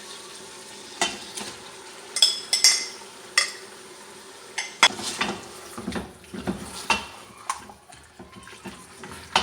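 A spoon knocking and scraping against a pressure cooker as mutton with yogurt and tomatoes is stirred, in scattered sharp clinks starting about a second in, over a steady low sizzle.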